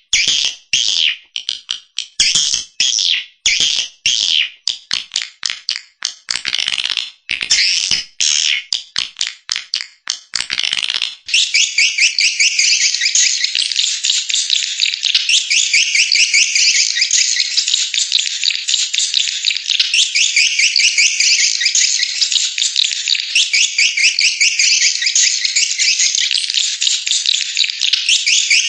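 Swiftlet lure-call recording of high, rapid swiftlet twittering, played loud to attract a colony to a bird house. For about the first eleven seconds it comes in short separate bursts of chirps, then it runs on as one continuous dense twitter.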